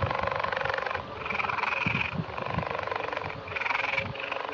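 Cheetah call, a rapid buzzing, rattling pulse in about four bouts separated by short breaks.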